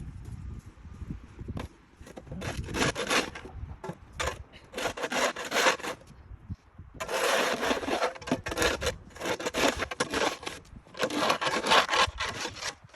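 Snow shovel scraping snow off the ground in repeated strokes, about five long scrapes of a second or so each, with a sharp knock at the start.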